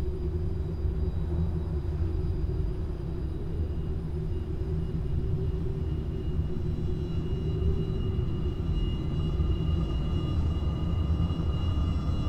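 A steady, low rumbling sound-design ambience, like wind and distant machinery. About seven seconds in, faint high whining tones fade in over it and build slowly.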